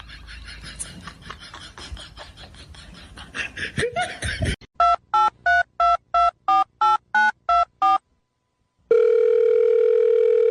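Rapid clicking and rustling, then a telephone keypad dialing: about a dozen quick two-tone beeps. After a short silence a loud steady tone like a dial tone comes in.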